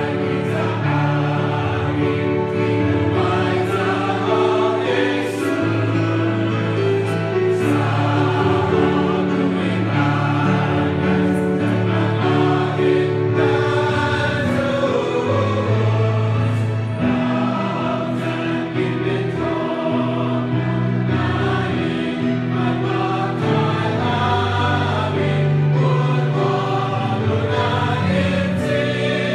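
Church choir singing, with sustained low accompanying notes held beneath the voices.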